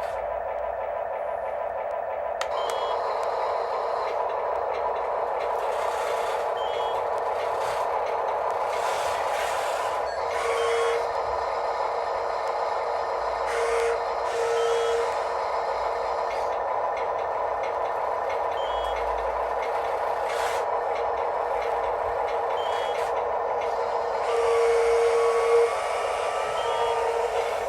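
Several radio-controlled model construction machines (excavators, dump trucks and a loader) working together: a steady whine of small electric motors, with short beeping tones now and then.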